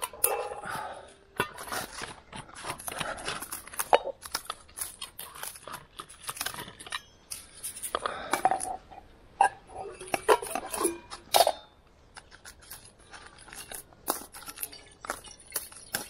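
Metal camping cookware clinking and clattering in short, irregular knocks as it is handled and set up.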